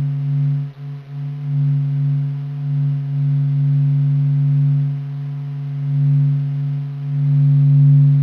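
Data sonification of the Sun: a steady low electronic hum with a stack of overtones, its loudness wavering slowly.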